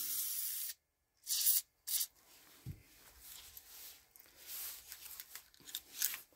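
Aerosol gun-cleaning spray hissing onto a cloth patch on a cleaning rod. It stops under a second in, with a short second spurt about a second and a half in. Then comes faint rubbing and scraping as the patched rod is worked at the revolver's barrel.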